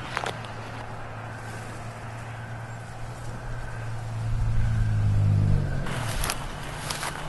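Low droning hum of a sci-fi film's ambient sound design. It swells louder about four seconds in, then wavers and thins out, with short hissing sweeps near the start and again near the end.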